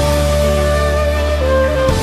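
Background music: a slow melody of long held notes that change pitch about once a second, over steady low bass notes.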